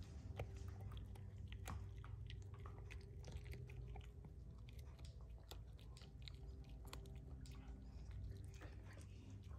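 A Chihuahua gnawing on a bone: faint, irregular crunching and clicking of its teeth on the bone.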